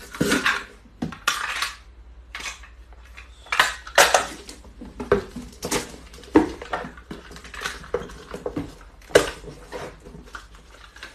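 Packing tape pulled off a hand-held tape dispenser and worked onto cardboard boxes: a couple of longer rasping tape pulls near the start, then irregular sharp knocks and taps of the dispenser and boxes.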